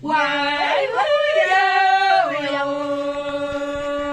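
Women singing a warawi, a traditional Andean song, unaccompanied in long held notes. About a second in the voice slides up to a higher note, holds it, then falls back to the first pitch just after two seconds.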